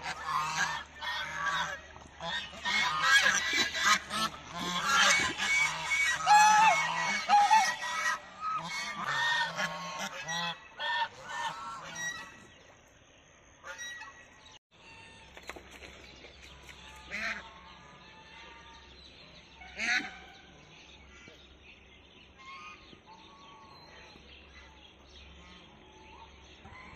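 A flock of domestic geese honking, many calls overlapping for about the first twelve seconds, then only two or three scattered calls.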